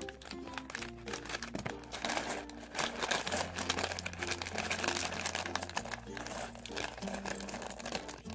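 Thin plastic LEGO parts bag being torn open and crinkled, with loose bricks rattling, over light background music.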